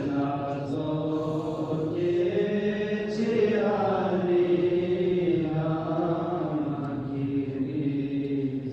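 Devotional chanting by male voices: long held notes that slowly rise and fall, one melismatic phrase running into the next.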